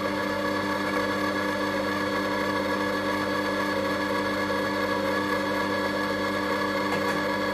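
Compact Cook Pro multicooker's motor running steadily at speed 3, turning the whisk attachment through pastry cream in the closed bowl during a 10-second mixing programme.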